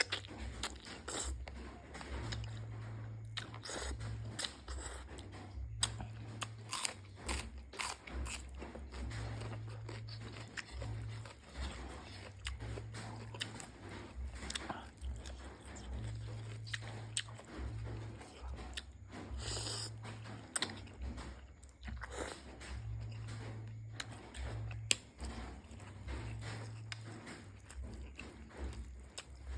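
A person eating pork noodle soup close to the microphone: chewing and biting, with many small clicks and crunches.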